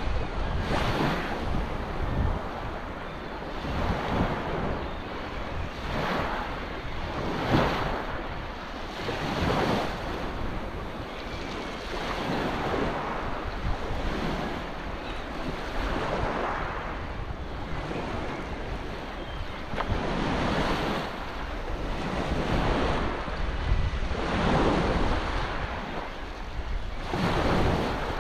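Small waves washing onto a sandy shoreline, a wash swelling up every few seconds, with wind rumbling on the microphone.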